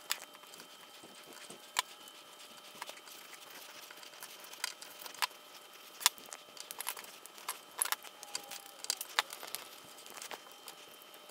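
Faint, irregular small clicks and taps of a jumper wire and fingers working a solderless breadboard, the wire being pushed into the board's contacts.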